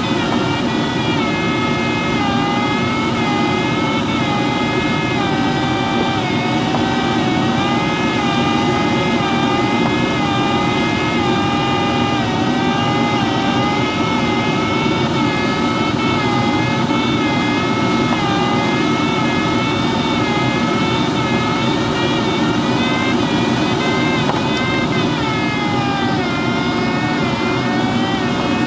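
Steady rush of airflow around an ASW-15b glider's canopy in flight, with an audio variometer's continuous tone wavering slowly up and down in pitch as the climb or sink rate changes.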